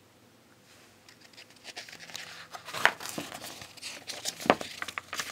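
Pages of a picture book being handled and turned: crinkling, rustling paper that starts about a second in, with a couple of sharp snaps as the pages flip over.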